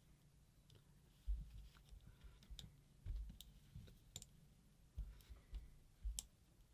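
Faint, scattered small clicks and soft low knocks of a microchip being handled and lined up on its socket on a paintball marker's circuit board, its pins being worked into place.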